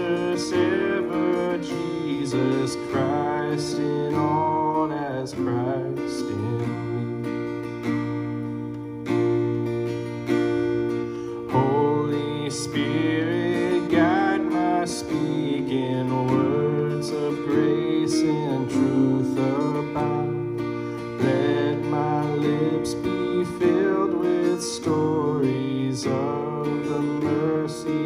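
Instrumental music led by a strummed acoustic guitar, with sustained chords under a moving melody.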